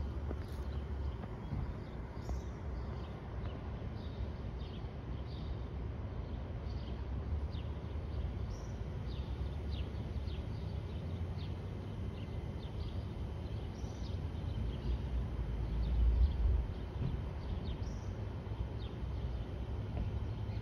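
Small birds chirping in short, repeated calls over a continuous low rumble, which swells briefly about sixteen seconds in.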